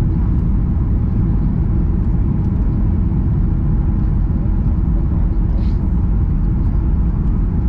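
Steady low rumble of a Boeing 737 airliner's jet engines and rushing air, heard inside the passenger cabin during final approach to landing.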